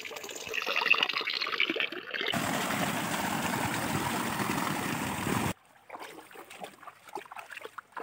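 Water trickling and splashing off a rock into a river, then a small cascade pouring right beside the microphone as a steady, loud rush that cuts off abruptly about five and a half seconds in. After that come softer, scattered crackles.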